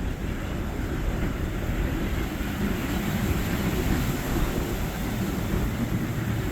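Motorboat engine running as the Cutwater boat passes, a steady low rumble that swells slightly toward the middle, mixed with wind and surf noise.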